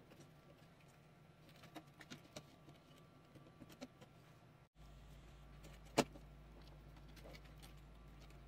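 Faint clicks and handling noise of wires and small connectors being pushed into a controller board's headers and its plastic case, with one sharp click about six seconds in. A faint low hum comes in about halfway through.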